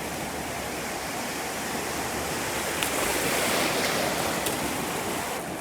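Ocean surf washing steadily, with a wave building and breaking louder a little past halfway.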